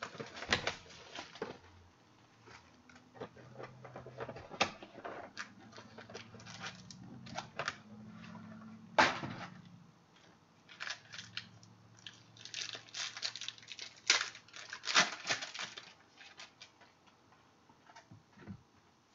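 A sealed box and pack of football trading cards being opened by hand: irregular tearing and crinkling of cardboard and plastic wrapper, with sharp crackles and rustling as the cards are pulled out. The loudest snaps come about nine and fourteen seconds in.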